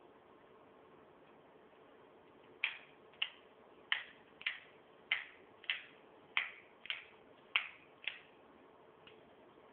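LEGO semi-automatic gun being fired shot after shot: about ten sharp plastic clacks from its firing mechanism, a little under two a second, starting a couple of seconds in, with a faint final click near the end.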